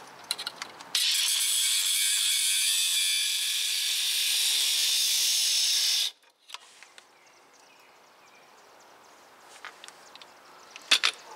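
Cordless cut-off tool's abrasive wheel grinding into steel at a truck's upper ball joint, a steady hissing grind that starts about a second in and cuts off suddenly after about five seconds. A few sharp clicks of tools being handled near the end.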